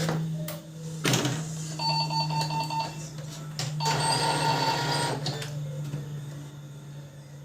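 Brother MFC-7360 laser printer switched on and running its drive motor and gear train: a steady hum, with two bursts of a fast, rattling, whining gear noise about two and four seconds in.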